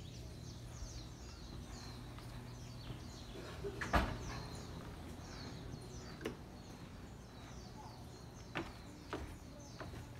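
Birds chirping steadily, many short falling notes, with a door shutting in one sharp knock about four seconds in. Then a few footsteps thump on wooden stairs.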